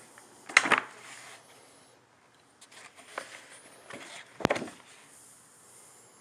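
Books and sheet music being handled and shifted: covers and pages brushing, with two louder knocks, about half a second in and about four and a half seconds in, and a few lighter taps between.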